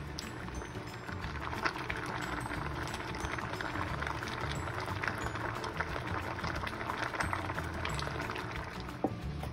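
Water heating in a stainless steel pot of mackerel and vegetables on the stove: a steady hiss with small crackles, under soft background music.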